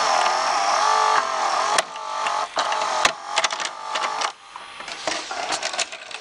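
Sharp VC-M530 VHS recorder's loading mechanism ejecting a cassette. The motor whirs in several spells with a wavering whine, and gears clatter as the pinch roller and threading arms pull back. Clicks come throughout, with a sharp one about three seconds in, and quieter clicking follows as the cassette carriage lifts near the end.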